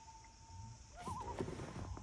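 Common loon calling: a long held wail note fades out within the first second, then a wavering, undulating call begins about a second in. A couple of soft knocks near the end.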